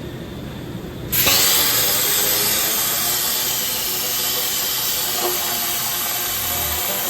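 A loud, steady hiss of rushing air starts suddenly about a second in and holds evenly, over a low steady background noise.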